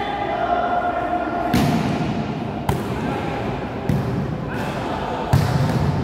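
Volleyball being hit during a rally in a large sports hall: four sharp slaps of hands and forearms on the ball, a second or so apart, each trailing off in the hall's echo.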